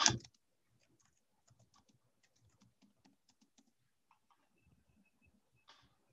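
Faint typing on a computer keyboard, a run of quick key presses, with one louder click near the end.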